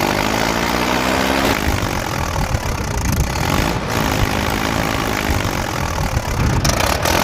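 Tractor engine running, its pitch rising and falling twice, under a loud rushing noise.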